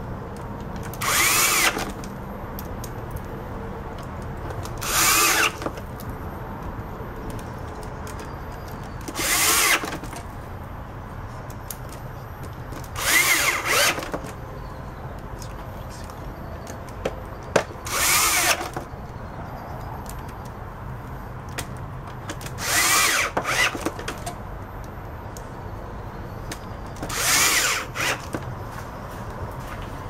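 Hand-held power drill driving screws into a vacuum cleaner's plastic housing: seven short whirring runs, each about a second long, spaced roughly four to five seconds apart.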